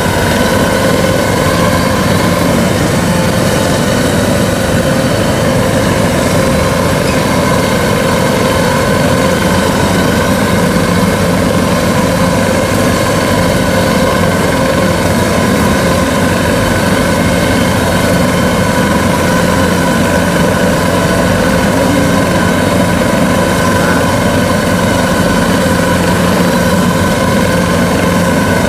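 Kubota DC-93 combine harvester's diesel engine running steadily at a constant pitch as the machine travels along on its tracks.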